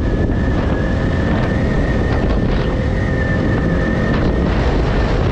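Motorcycle on the move: engine and road noise under wind buffeting on the microphone. A steady high-pitched whine runs along with it and stops about four seconds in.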